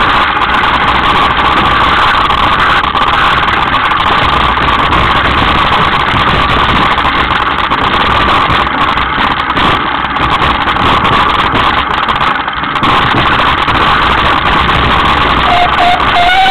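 Continuous loud rattle and rumble of a Specialized S-Works hardtail mountain bike running fast down a rocky trail, mixed with wind rushing over the camera microphone. A short rising squeal comes in near the end.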